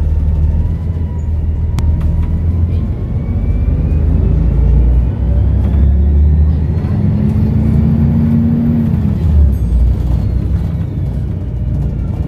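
Volvo B7RLE bus's six-cylinder diesel engine running under load with a deep rumble, its turbocharger whistle rising slowly over several seconds and then falling away.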